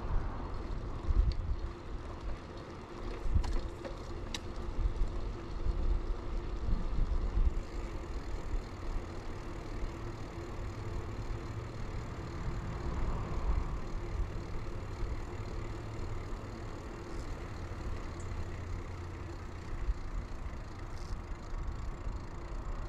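An early-90s Bianchi Alante mountain bike being ridden: tyres rolling on pavement with a steady hum, and wind rumbling on the microphone. A few light clicks come about three and four seconds in.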